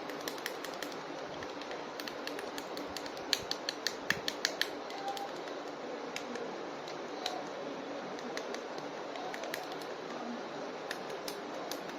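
Small sharp plastic clicks and taps from action-figure toys and their packaging being handled, with a quick run of clicks about three to four and a half seconds in, over a steady hiss.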